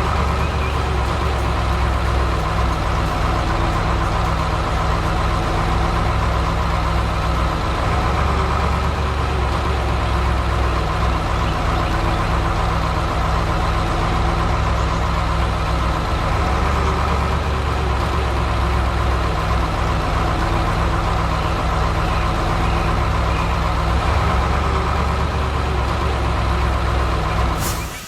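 Heavy truck engine running steadily, a low, even, continuous drone that cuts off near the end.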